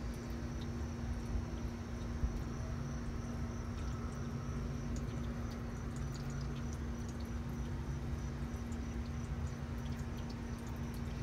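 Steady background noise: a constant low hum over a rumble, a faint high steady tone and scattered light ticks.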